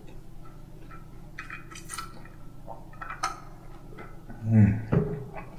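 Ice and water shifting in a clear plastic tumbler as it is picked up and handled, with a few light clicks and knocks. About four and a half seconds in comes a short, louder low vocal sound from the man, falling in pitch.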